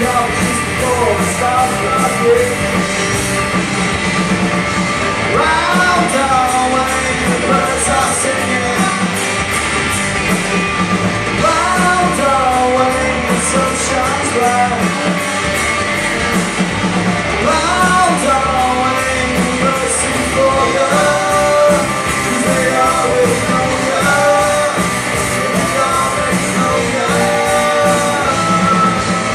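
Live rock band playing a cover song, with a lead singer over a dense, steady band sound.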